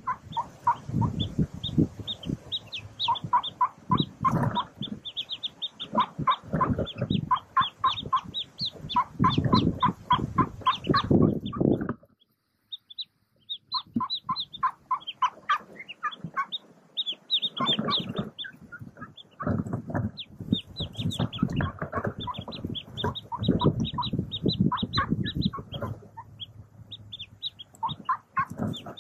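Mallard ducklings peeping rapidly, a dense run of short high peeps, over low rustling and scuffling as the hen and ducklings move through the nest litter. It goes quiet for about a second and a half partway through, then the peeping starts again.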